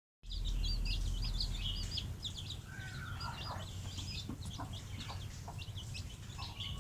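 Many birds chirping in quick, overlapping high calls, with a few lower calls in the middle, over a low rumble.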